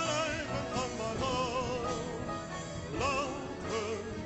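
Background music: a Dutch-language song in a passage between sung lines, with a wavering melody line over a steady accompaniment.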